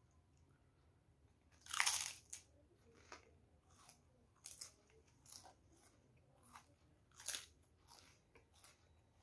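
A person biting into a crisp krupuk (Indonesian fried cracker) with a loud crunch about two seconds in, then chewing it with a run of smaller crunches; a second loud crunchy bite comes late on.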